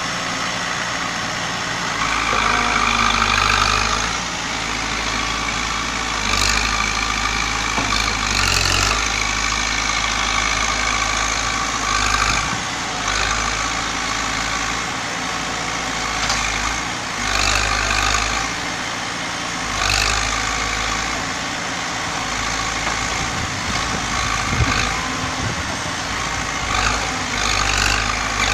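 Caterpillar 424B backhoe loader's diesel engine running and revving up in repeated swells every few seconds as the machine labours to work itself out of deep mud, with a few short knocks.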